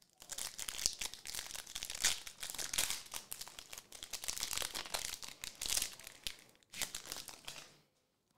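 Trading card pack wrapper crinkling as it is torn open and handled: a dense run of crackles that stops about six seconds in, then one more short crinkle near seven seconds.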